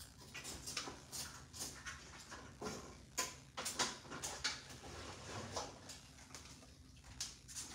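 Irregular light clicks and knocks of kitchen cabinets being rummaged through, with cupboard doors and things on the shelves handled and moved.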